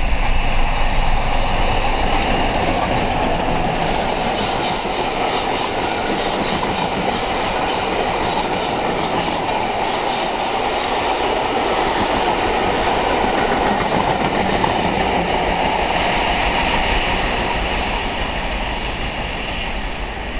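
A passenger train hauled by an LNER A4 steam locomotive passing, its coaches running by on the rails with a steady noise that fades near the end as the train draws away.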